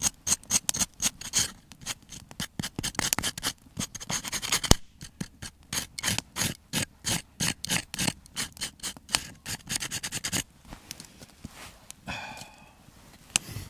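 Knife blade scraping the burnt crust off a small loaf of campfire bread baked in a can, in quick repeated strokes, several a second, that thin out about ten seconds in. One sharp click about five seconds in.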